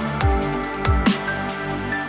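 Background music: an electronic track with a steady beat of deep kick drums that fall in pitch, sharp hits and held synth notes.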